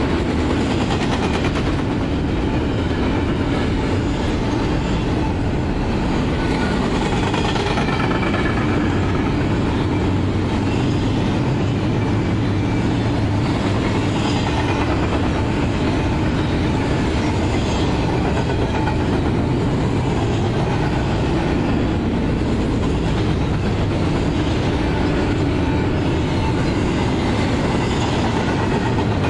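Double-stack container train's well cars rolling past: a loud, steady rumble of steel wheels on the rails that holds without a break.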